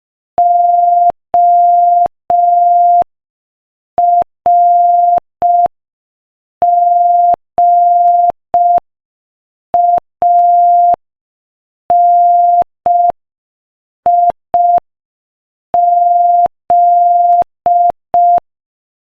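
Morse code practice tone sent at 5 words per minute: a steady pure tone of about 700 Hz keyed in dots and dashes, with letter gaps of about a second. The letters sent read O-R-G-A-N-I-Z.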